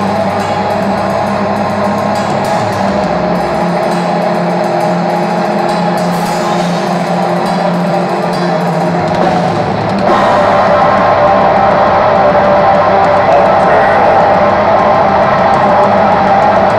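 Black metal band playing live: distorted electric guitars over a drum kit with bass drum and cymbals. The low end drops away for a few seconds, and about ten seconds in the music comes back louder and fuller.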